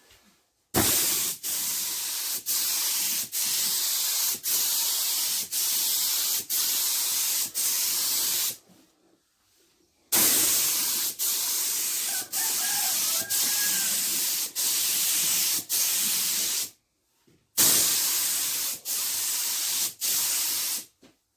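Primer being sprayed: three long spells of hissing spray lasting several seconds each, broken by short regular dips about once a second.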